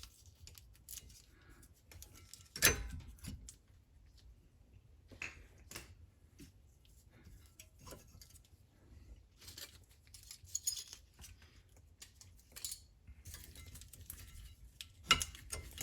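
Light metallic clicks and clinks of rear brake pads and their shims being worked out of the caliper bracket, with one sharp knock about two and a half seconds in and a cluster of clinks near the end.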